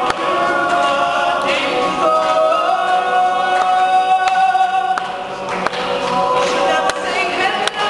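All-male a cappella group singing in close harmony, voices only, holding long chords that shift from one to the next.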